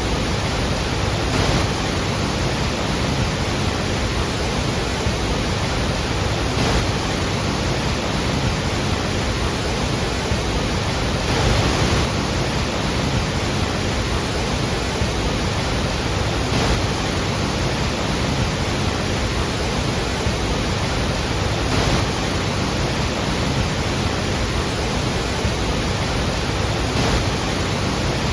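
Iguazú Falls: a large waterfall's falling water making a steady, dense rush, with slight swells every few seconds.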